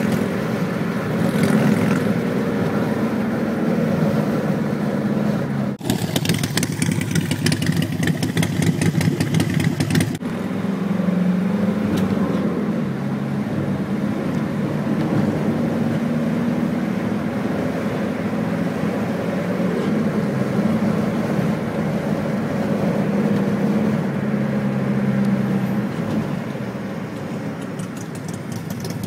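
Motorcycle engine running steadily at road speed, with wind rushing over the microphone. The sound cuts off abruptly and resumes twice, about six and ten seconds in.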